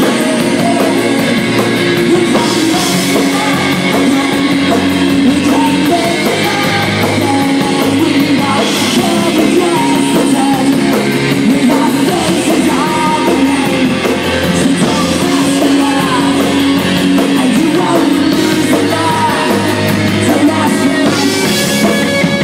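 Live rock band playing loudly: a male lead singer sings into a handheld microphone over electric guitar and drums.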